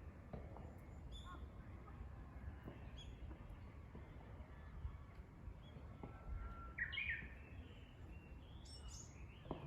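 Japanese bush warbler (uguisu) singing one song phrase about six seconds in: a long held whistle running straight into a quick, pitch-jumping flourish. Short high chirps of other birds come and go, over a low steady rumble.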